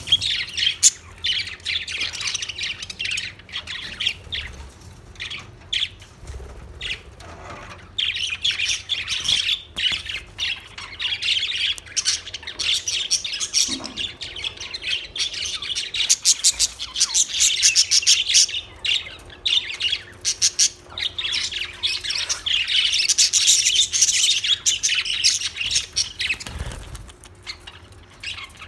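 Several budgerigars chirping and chattering without pause, the chatter swelling in a few louder stretches.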